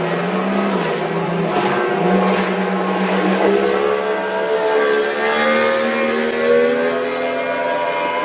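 Several powerboat engines running at once, their engine notes at different pitches shifting up and down.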